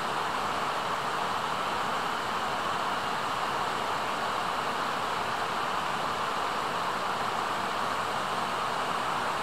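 Steady, even rushing noise with no distinct events or animal calls.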